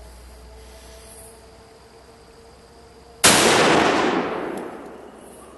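A single high-powered rifle shot about three seconds in, a sharp crack followed by a long rumbling echo that fades over about two seconds. The tannerite packed in the pumpkin target does not detonate: the shooters blame a bad mix.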